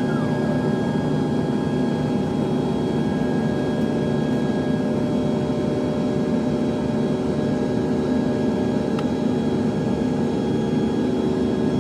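Steady cabin noise of an Airbus A350-900 in its climb after takeoff: the even rush of its Rolls-Royce Trent XWB jet engines and airflow, with several steady humming tones.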